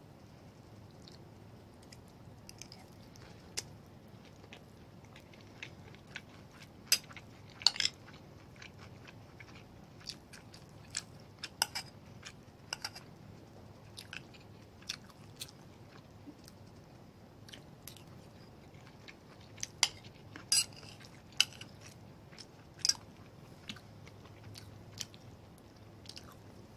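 Close-miked chewing of ginger beef and rice, with many irregular sharp mouth clicks.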